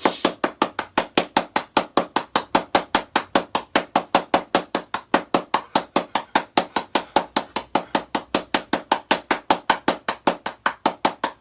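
Rapid, evenly spaced tapping or knocking, about five or six short knocks a second, keeping a steady rhythm.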